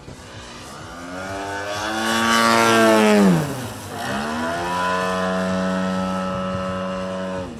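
Engine of an Edge 540 aerobatic plane in display flight, a pitched engine note that swells to its loudest. A little past three seconds the pitch drops steeply, then climbs back and holds at a steady high tone until it cuts off suddenly at the end.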